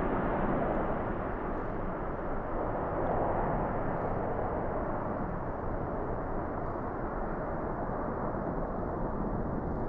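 Jet engines of a departing Airbus A330 at take-off thrust: a steady, broad roar whose hiss slowly dulls and softens as the airliner climbs away.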